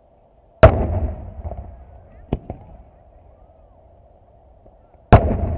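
Aerial firework shells bursting: a loud boom about half a second in that rolls away for over a second, a couple of sharp cracks near two and a half seconds in, and another loud boom about five seconds in. A faint steady hum runs underneath.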